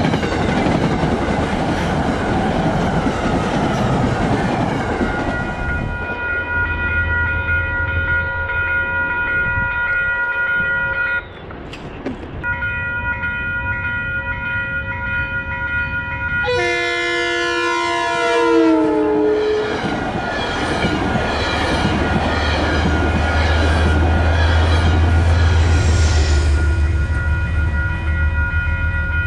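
Metro-North Hudson Line commuter trains. First a train rolls past with its wheels rumbling and clattering on the rails. Then, over a steady ringing, a second train sounds its horn as it passes, the chord dropping in pitch, and its locomotive rumbles by with heavy noise.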